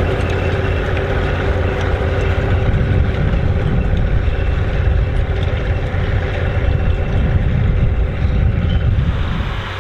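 Massey Ferguson 135 tractor's diesel engine running steadily while pulling a four-furrow plough, with a deep rumble. It drops slightly in loudness just before the end.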